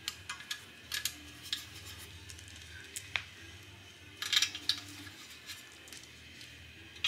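Small metal fasteners clicking and clinking lightly as they are handled in gloved hands, with a short flurry of clinks about four seconds in.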